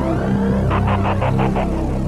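Background electronic music with a steady low drone; quick pulsing notes come in a little under a second in.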